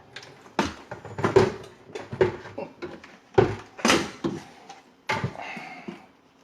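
Irregular knocks and clunks of drain pipe parts and rodding gear being worked under a kitchen sink, about six sharp hits with the loudest pair a little past the middle.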